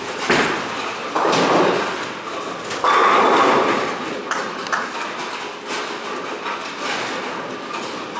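A bowling ball thuds onto the lane, rolls with a rumble, and crashes into the pins about three seconds in, followed by scattered knocks.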